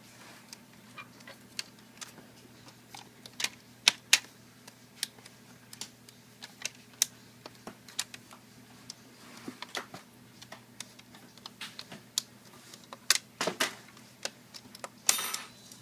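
Irregular light clicks and taps of small laptop parts being handled and pressed into place, with a short louder burst of clicking near the end.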